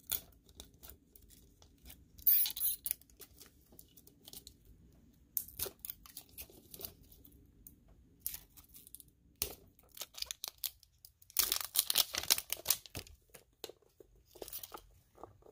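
Wrapping on a surprise toy egg being torn open and crinkled by hand, in scattered crackles with a louder tear about two seconds in and a longer run of rustling tearing near the end.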